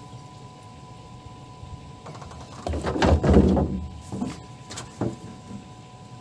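Rough scraping and knocking on a wooden boat as a pole is worked among rustling branches: one loud scrape about three seconds in, then a few sharp knocks.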